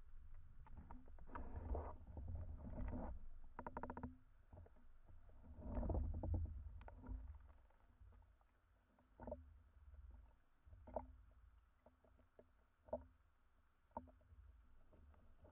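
Underwater water noise picked up by a camera mounted on a speargun: a low rumble with surges of rushing water and bubbles as the diver moves up near the surface. It is followed by a few short knocks about every two seconds.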